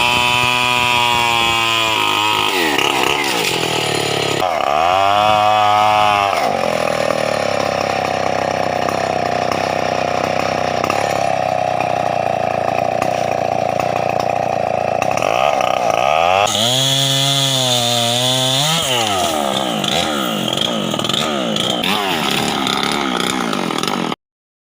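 Stihl 070 two-stroke chainsaw running at high revs. Its pitch drops and climbs back several times, with a long steady stretch at high speed in between. The sound cuts off suddenly near the end.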